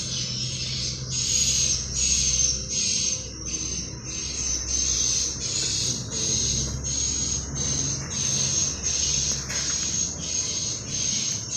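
Swiftlet calls: high, rhythmic twittering chirps repeating roughly twice a second, over a low hum.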